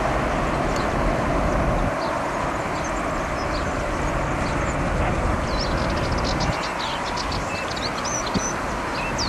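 Boeing 757-200 jet engines at takeoff thrust, a steady roar as the airliner rolls down the runway and rotates.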